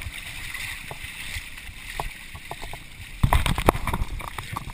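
Muddy water sloshing and splashing as a person crawls on hands and knees through a mud pit, with a cluster of louder splashes and knocks a little over three seconds in.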